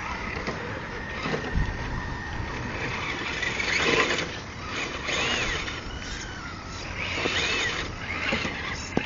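RC rock crawler's electric motor and gearbox whining as it climbs a rock: a steady whine at first, then short rises and falls in pitch as the throttle is worked. The battery is nearly flat.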